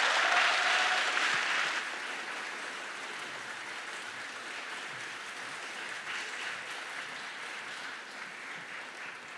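Audience applauding. It starts loud and eases after about two seconds into steady clapping.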